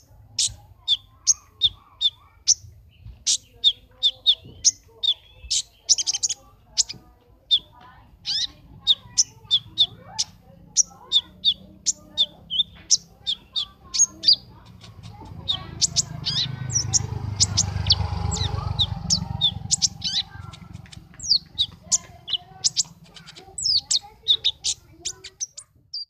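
Caged male kolibri ninja sunbird chirping rapidly and without pause: a long series of short, sharp, high chirps, about two to three a second. About halfway through, a low rumble swells up under the chirps and fades again.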